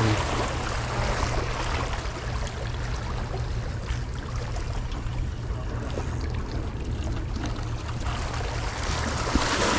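Steady rushing outdoor noise of wind on the microphone and sea water washing, with no distinct events; it grows a little louder near the end.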